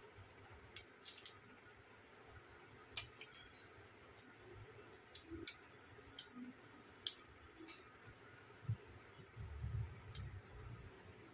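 Faint, scattered sharp clicks and crinkles from metal tweezers and a small clear plastic parts bag being handled. A low rumble of handling comes near the end.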